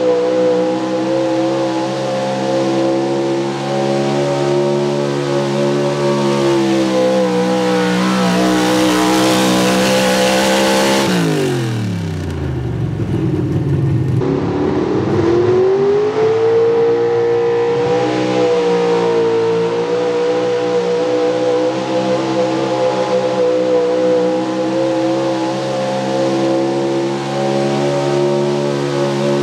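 Small-block Chevy V8 of a 4x4 pulling truck running at high, steady revs under the load of a weighted pulling sled. About halfway through, the revs drop sharply, then climb back and hold high again.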